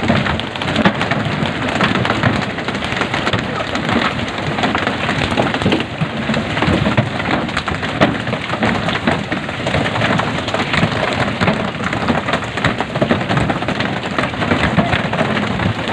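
Pole-and-line tuna fishing from a wooden boat: a dense, steady rain-like patter of water splashing, full of sharp slaps and knocks as tuna are swung aboard and hit the wooden deck.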